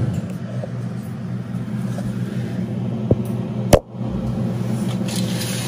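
Steady low hum with camera-handling noise as the phone camera is moved on the kitchen counter, and a sharp knock about three and a half seconds in.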